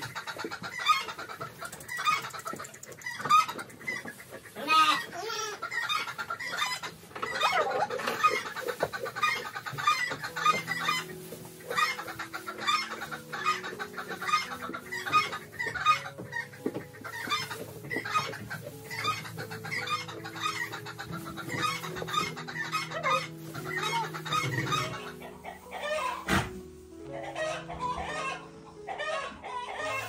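Chickens clucking over and over. Soft background music with long held notes comes in about a third of the way through, and there is a single sharp knock near the end.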